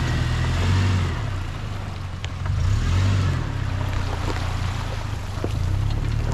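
A motorboat engine running: a low hum that swells twice and eases, over a steady hiss.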